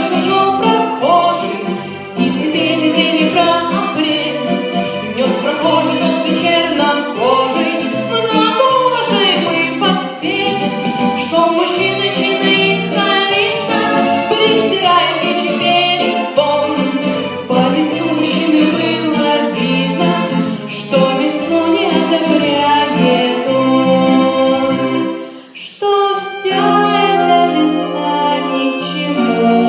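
Song music with singing voices and accompaniment, with no clear words, and a brief drop in level about 25 seconds in.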